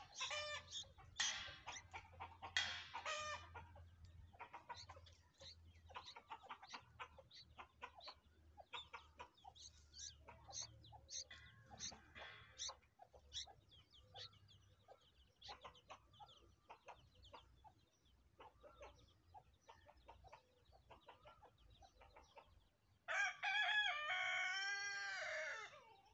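Bulbul nestlings begging with many short, high chirps, loudest in the first few seconds. Near the end a louder, drawn-out call lasting about three seconds stands out over them.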